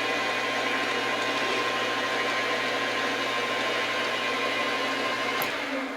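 Metal lathe running steadily with a constant motor hum. It is switched off with a click near the end and begins to wind down.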